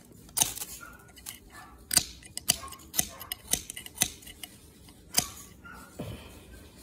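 Ferro rod scraped hard with a striker to throw sparks onto dry tumbleweed tinder: a series of short, sharp metallic scrapes, about seven loud strokes at uneven spacing.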